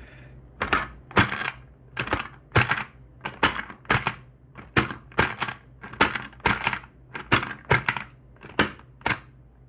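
3D-printed AR-15 magazine loader being worked by hand, each stroke pressing a cartridge from its hopper down into the magazine: a sharp plastic clack, sometimes doubled, about twice a second.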